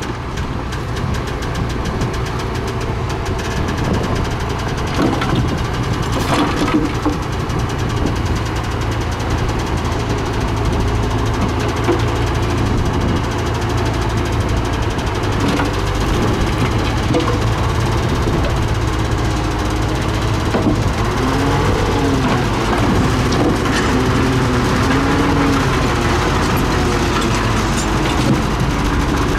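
Heavy dump truck's diesel engine running steadily. From about two-thirds of the way in, its pitch rises and falls repeatedly as the hydraulic hoist raises the bed to tip a load of dirt.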